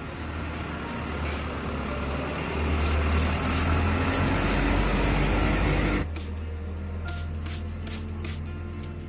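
Hand-held plastic trigger sprayer squirting in short sharp hisses, several times in quick succession. For the first six seconds they sit over a louder steady rushing noise with a low hum, which cuts off suddenly.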